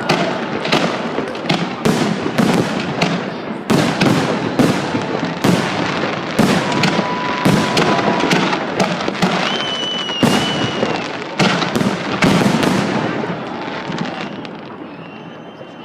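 Festive fireworks salute: a rapid run of sharp bangs and crackling bursts, several a second, thinning out and getting quieter near the end.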